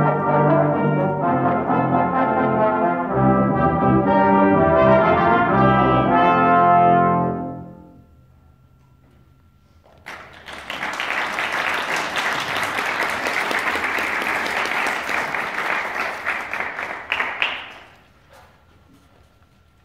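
Brass quintet of two trumpets, French horn, trombone and tuba playing, closing on a held chord that dies away about seven seconds in. After a couple of seconds of quiet, audience applause for about seven seconds, fading out near the end.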